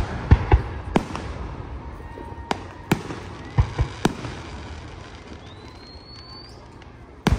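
Aerial fireworks bursting overhead: a run of sharp bangs and crackles through the first four seconds, then a quieter stretch with a brief rising whistle, and a loud bang near the end.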